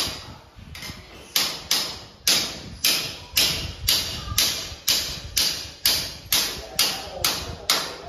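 A claw hammer driving nails through an air conditioner's steel wall-mounting bracket into the wall: a steady series of sharp strikes, about two a second.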